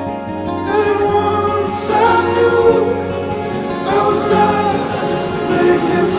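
Background music: a song with sung vocals over sustained chords, the voice coming in about a second in.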